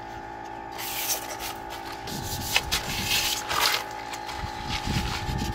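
Fine sandpaper rubbed by hand over a yacht's keel, smoothing a patch of exposed bare metal before priming. Quiet at first, then repeated scratchy strokes from about a second in.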